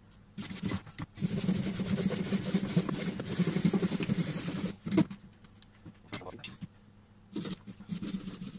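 Hand pruning saw cutting through a wild olive branch in quick back-and-forth strokes for about four seconds, then one sharp knock and a few scattered clicks and scrapes.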